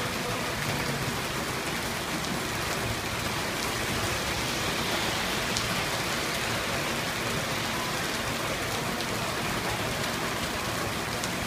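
Steady downpour of rain falling on a flooded street and pavement.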